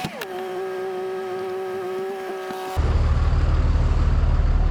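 Tow truck pulling forward: a steady mechanical whine that drops in pitch at the start and then holds, and about three seconds in a deep, loud diesel engine rumble comes in.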